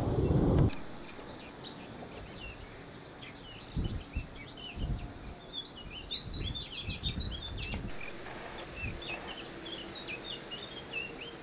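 Small birds chirping and twittering in quick high runs, over a faint low rumble with a few short gusts. A louder low rumble cuts off abruptly under a second in.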